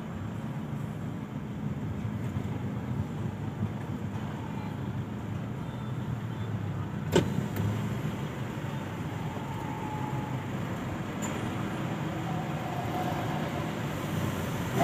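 Steady low hum of a car at idle, heard from inside the cabin while creeping forward in a toll-gate queue. A single sharp click comes about seven seconds in.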